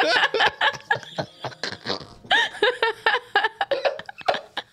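A man and a woman laughing in irregular fits and snickers, dying down near the end.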